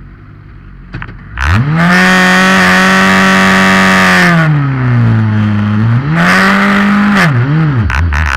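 Formula Two car's turbocharged four-cylinder engine firing up about a second and a half in and held at steady high revs for a few seconds. The revs then drop, rise again and are blipped twice before settling to a lower idle near the end.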